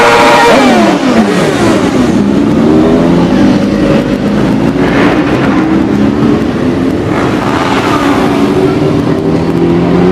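Motorcycles riding past one after another, their engines revving, the pitch rising and falling as each goes by. The loudest pass is at the start, its pitch falling away within the first second or two.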